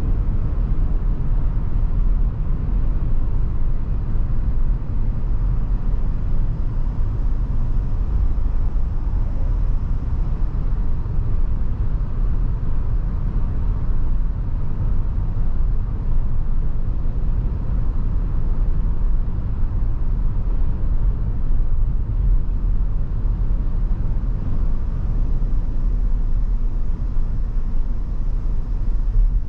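Cabin noise of a 2023 Chevrolet Tahoe Premier being driven: a steady low rumble of road and tyre noise with the hum of its 5.3 L V8, holding even with no sudden changes.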